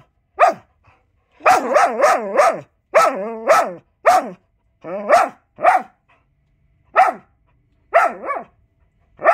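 A dog barking in short runs of one to four quick calls, each call rising and falling in pitch, with pauses between the runs: demand barking for food it is being refused.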